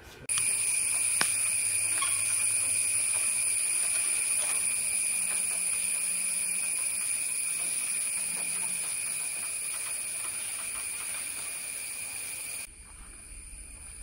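A droning insect: one steady, high-pitched, unbroken tone that starts suddenly just after the start and cuts off suddenly near the end.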